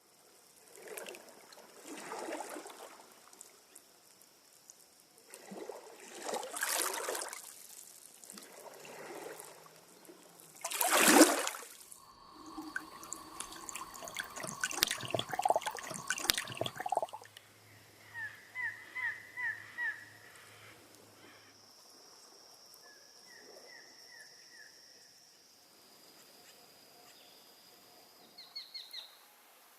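Small waves washing up on a beach in several separate swells, the loudest about a third of the way through. In the second half, birds give short runs of quick chirps.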